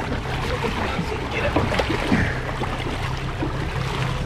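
Boat engine hum with water rushing and bubbling, heard through a camera held underwater beside a marlin's head.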